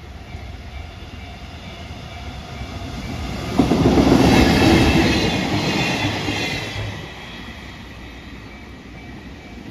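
A train hauled by a JR Freight EF210 electric locomotive passes a level crossing. Its rumble swells, turns suddenly loud about three and a half seconds in, with wheels clattering over the rails, and fades by about seven seconds. Under it, the crossing's warning bell rings steadily.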